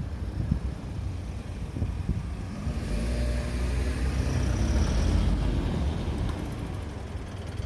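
A car driving past, its engine and tyre noise swelling about three seconds in, peaking around the middle and then fading.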